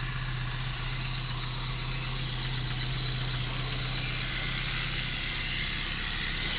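Opel Vectra A's 1.8-litre C18NZ inline-four idling steadily, with a thin steady high tone over it, running on a freshly fitted used Bosch alternator with the charging light out.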